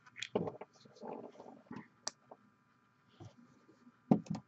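Scattered clicks and light knocks of small objects being handled on a tabletop, with the sharpest knock about four seconds in.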